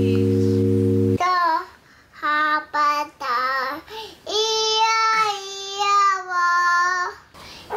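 Low, steady musical chords that cut off about a second in, then a toddler singing in a high voice: a few short notes, then one long held note, then a short note near the end.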